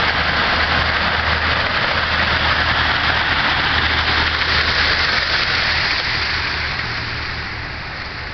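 Waterfall rushing loudly, swollen after heavy rain, with a low rumble under the rush; it fades somewhat over the last two seconds.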